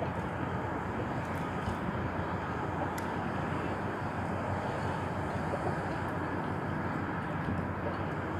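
Steady low rumble and hiss of outdoor background noise, with one faint click about three seconds in.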